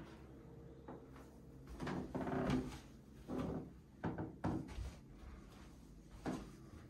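Irregular soft thuds and knocks, about five of them, the loudest about two seconds in: footsteps and handling noise of someone walking a handheld camera across a carpeted room.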